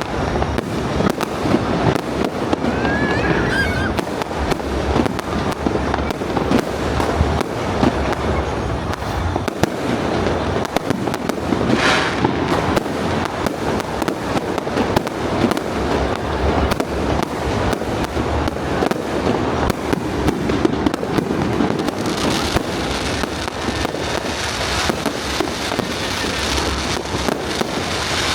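Aerial fireworks going off in rapid, continuous volleys of bangs and crackle. A brighter spread of high crackling takes over in the last several seconds.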